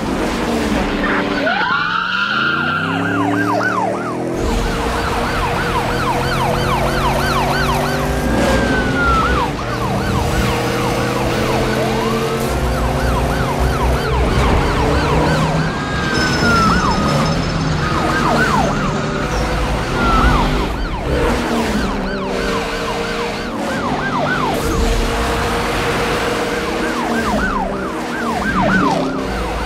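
Police sirens yelping in fast repeated sweeps, with now and then a slower wail, over car engines revving that climb in pitch and drop back as if through gear changes.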